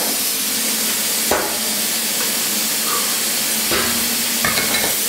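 Steady hiss of air from a plasma cutter running just after its torch has cut through a steel I-beam, with a few light knocks about a second in and again near the end as the cut-off steel is handled.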